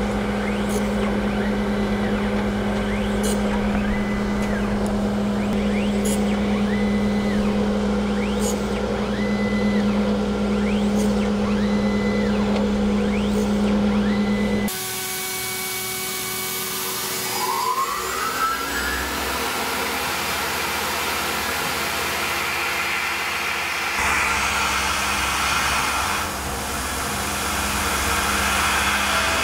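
Surface grinder running with a steady motor hum and faint ticks every couple of seconds as the table traverses a steel disc under the wheel. About halfway through, this gives way to a CNC milling machine: its spindle winds up in a rising whine, then a 1/4-inch four-flute carbide end mill at 4,500 rpm runs an adaptive cut in the disc.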